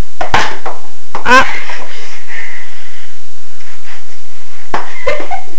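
Short non-speech voice sounds: a quick sharp breath or sniff near the start, then a brief vocal exclamation that slides in pitch about a second in, and a few short sounds near the end.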